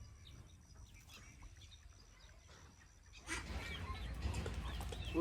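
Ducks quacking, faint at first and louder from about three seconds in, with short calls repeating.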